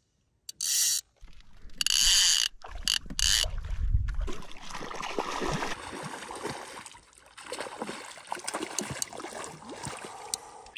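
Fly reel's click-and-pawl drag ratcheting in several loud bursts as a hooked trout runs line off the reel. This gives way to quieter clicking and water splashing as the fish is brought to the net.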